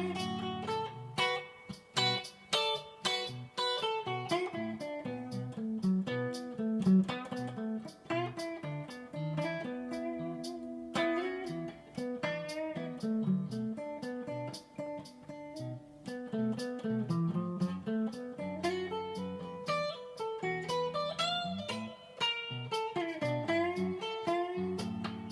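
Squier Telecaster 70s Thinline electric guitar, on its humbucker pickups, played through a Fender Supersonic 60 valve amp: a continuous passage of picked single notes and chords, with some bent or slid notes.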